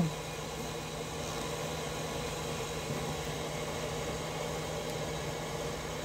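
A small electric machine running steadily: a continuous low mechanical hum with a faint hiss, with no distinct knocks or clicks.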